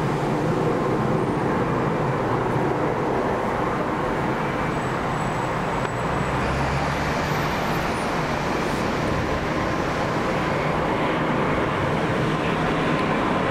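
Boeing 787-9 Dreamliner on approach with its landing gear down: a steady jet rumble that slowly grows louder as it closes in, with a higher hiss building near the end.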